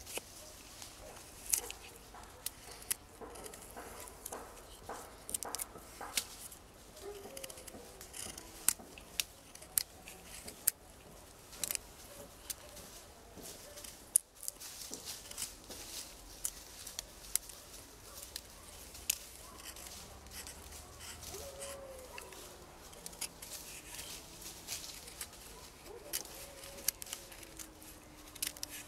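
Fixed-blade knife carving a hazel stick: irregular sharp clicks and scrapes as the blade shaves and snaps off wood, trimming the cross cuts down to single points.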